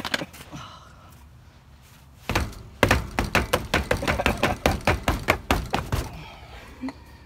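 Rapid string of dull thuds, about four a second, as a boot kicks a tire to knock a wheel loose that is stuck on its hub. The kicking starts a couple of seconds in and stops shortly before the end.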